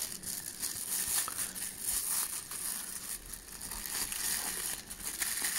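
Thin clear plastic bag crinkling and rustling in the hands as a pair of binoculars is unwrapped from it, a steady crackle of many small rustles.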